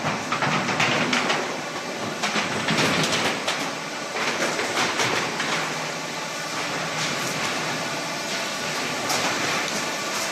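Factory machinery running: a steady, dense mechanical noise with irregular clattering.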